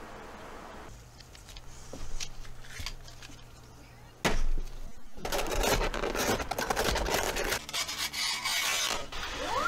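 A utility knife blade slicing through a cardboard box, a scratchy tearing sound in a run of quick strokes lasting about four seconds. A single sharp knock comes just before it, about four seconds in.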